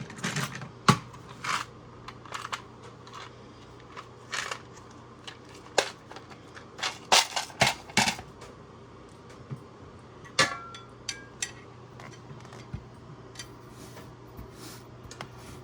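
Small hand tools such as Torx screwdrivers being gathered and put away: scattered clicks and clatters on a hard surface, thicker in the first half and thinning out later, with one short ringing metal clink about ten seconds in.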